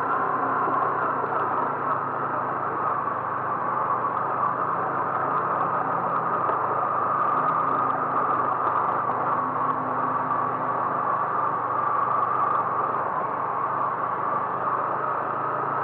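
Steady car engine and road noise from a car driving at an even speed, with no change through the stretch.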